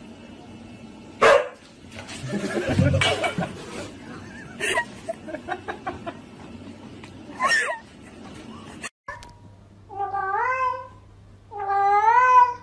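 Mixed sharp noisy bursts and scuffling in the first part, the loudest about a second in. After that, a grey cat meows twice, drawn-out calls that rise and then fall.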